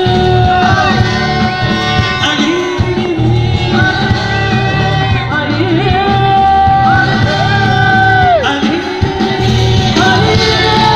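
Live amplified band and singers performing a song through a concert PA. Sung lines hold long notes over a full, steady backing of bass and drums.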